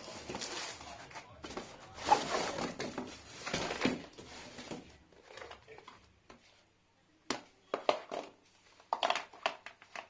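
Cardboard box and packaging rustling and scraping as they are handled for about five seconds, then, after a quiet moment, several sharp clicks and knocks of a hard plastic dish drainer rack being handled.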